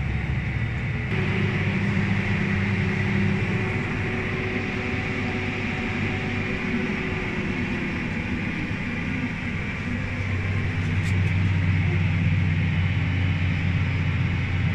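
CLAAS Axion 960 TerraTrack tractor's six-cylinder diesel running as the tractor drives across the field, heard inside the cab as a steady drone. Its note shifts about a second in and again around ten seconds.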